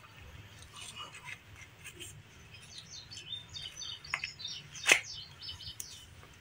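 Faint high chirping in the background, like small birds, with a single sharp click about five seconds in.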